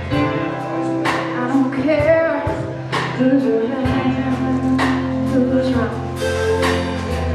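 Live band playing a song: a woman singing over acoustic and electric guitars, keyboard and a drum kit, with a steady beat of drum hits.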